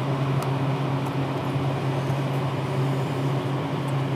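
Steady low ventilation hum with a fixed pitch, with one faint tap about half a second in.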